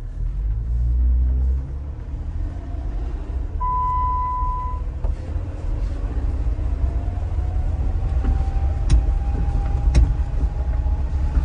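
Jeep Wrangler's engine and drivetrain heard from inside the cabin as it gathers speed: a low rumble, loudest about a second in, with a faint whine that rises slowly in pitch. A short steady beep sounds about four seconds in, and two sharp clicks come near the end.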